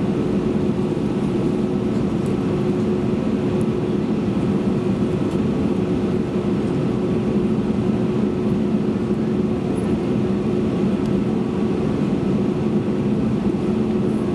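Cabin noise of an Airbus A321-200 on the ground, with its engines at low power: a steady drone with a constant hum of two low tones.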